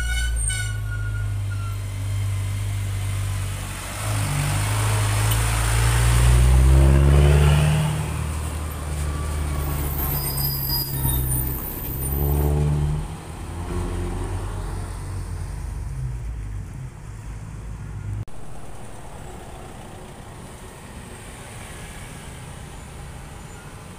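Diesel container truck passing close by, its engine climbing in pitch twice as it pulls through the gears. It is loudest about seven seconds in. At about eighteen seconds its sound drops away to quieter, steady traffic noise.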